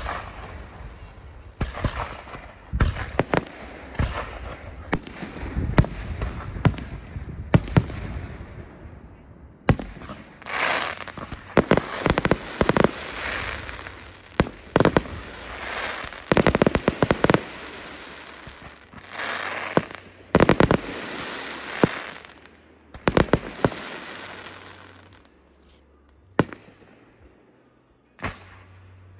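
Fireworks display going off: a rapid run of sharp bangs from bursting shells, many in quick clusters, thinning out in the last few seconds.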